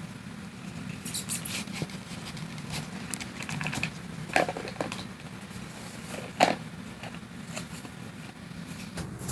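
Scattered light clicks and taps over a steady low hum, with two sharper clicks a little past the middle.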